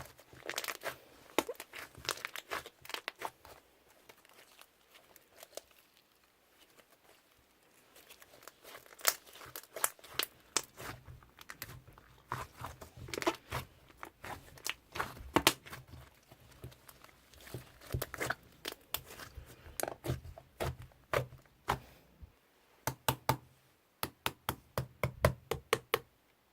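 Slime being pressed and stretched by hand, giving irregular runs of crisp crackling and popping clicks, with a quieter pause about four seconds in.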